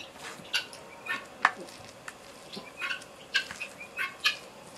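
Birds chirping: about ten short, irregularly spaced chirps over a faint steady background, with one sharp click about a second and a half in.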